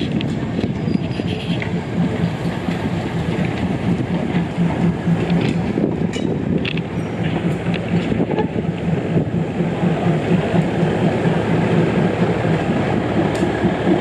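Train running along the rails: a steady rumble with a low hum, and occasional clicks from the wheels.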